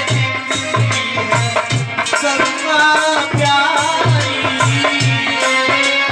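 Hindu devotional aarti music: a hand drum beating steadily about three times a second, with rattling percussion and a melody over it.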